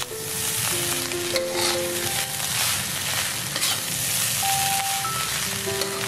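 Fried rice sizzling in a hot wok as it is stirred and tossed with a metal spatula, the hiss surging each time the rice is turned over. A light melody plays underneath.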